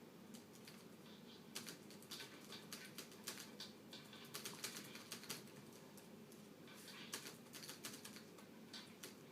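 Faint, irregular key presses on the Compaq Evo N400c laptop's keyboard. They come in two runs, one from about a second and a half in to about five and a half seconds, and a shorter one from about seven to nine seconds.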